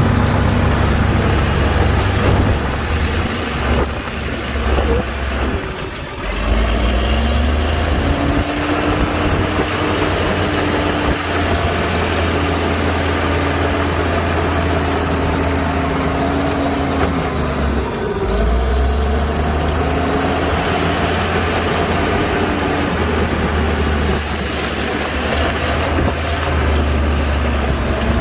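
Heavy diesel earthmoving machinery running steadily, with a whine that rises and falls in pitch several times. The engine drone briefly drops away twice.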